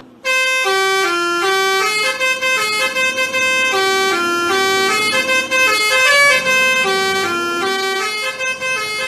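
Basuri telolet bus horn playing a melody: a quick run of held, stepped horn notes, one after another with short breaks, starting a moment in.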